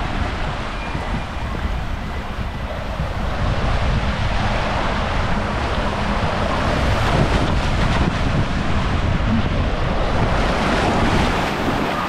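Water rushing under a tube as it slides down an open water-slide channel, with wind buffeting the microphone: a steady, loud rushing noise.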